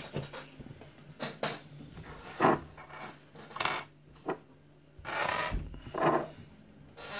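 Handling noise: a series of small metallic clinks and knocks, with a longer scraping rustle about five seconds in.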